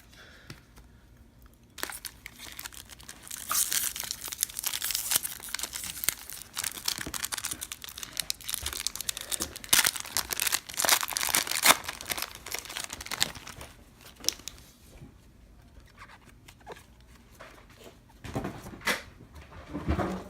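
A 1998 Fleer Ultra baseball card pack being torn open, its wrapper crinkling and crackling. It starts with a snap about two seconds in and runs loudest until about thirteen seconds in, then fades to quieter handling.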